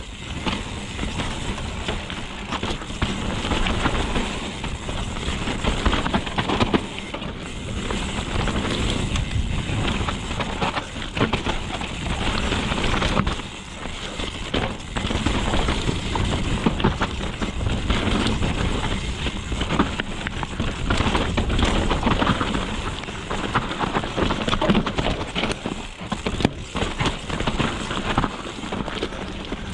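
Mountain bike riding down a dirt trail: a steady rush of tyre and wind noise with frequent sharp knocks and rattles from the bike over rough ground.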